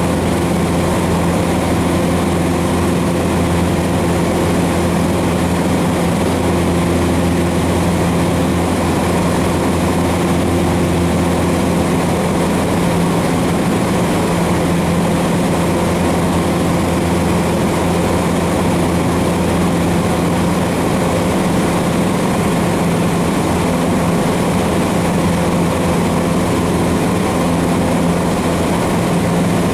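Cessna 150's Continental O-200 four-cylinder engine and propeller running steadily in flight, one even drone at an unchanging pitch, heard from inside the cabin.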